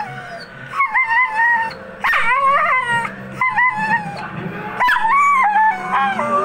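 Staffordshire bull terrier crying over an empty food bowl: about five high-pitched, wavering whines and short howls in a row, each under a second long.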